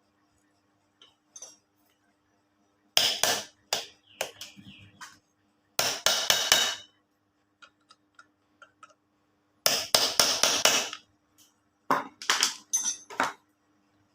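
Metal tools and parts knocking and clinking in four short bursts of rapid hits, with near silence between them.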